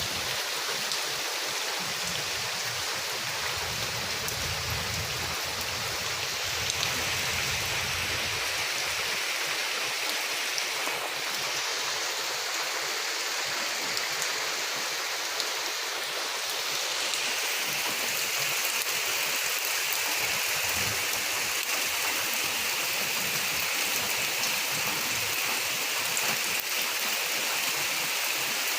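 Steady rainfall, a continuous hiss of falling rain that grows a little heavier about two-thirds of the way through.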